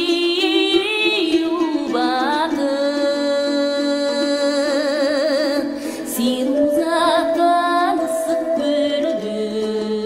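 Music: a woman singing long held notes that waver with vibrato and glide between pitches, over sustained instrumental accompaniment.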